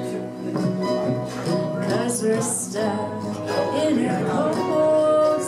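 Live acoustic band music: acoustic guitars playing a country-style tune, with a long held note near the end.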